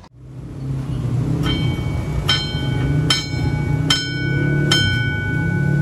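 Electromechanical level-crossing dome bell being struck by its hammer five times, about once every 0.8 s from about a second and a half in, with the ringing carrying on between strokes. Under it runs a steady low rumble.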